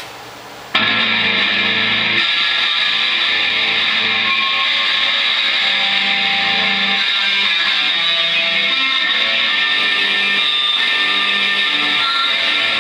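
Loud distorted electric guitar noise that cuts in suddenly about a second in, then holds as a steady, harsh wall of sound with sustained low notes underneath.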